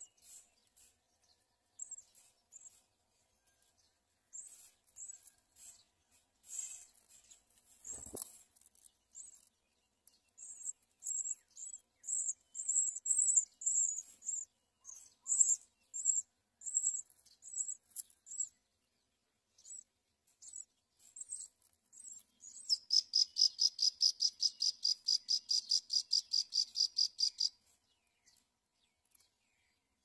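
House sparrows at the nest: high, thin cheeps repeated again and again, typical of nestlings begging for food, with a single soft knock about eight seconds in. Near the end comes a louder, fast, evenly pulsed trill lasting about five seconds.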